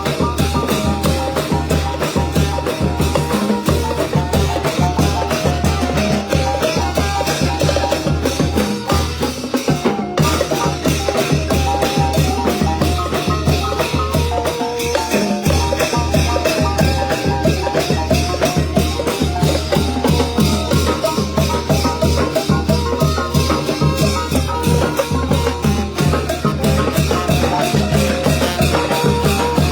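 A Thai trae wong brass band playing a lively tune over a steady drum beat, with dense percussion strokes throughout.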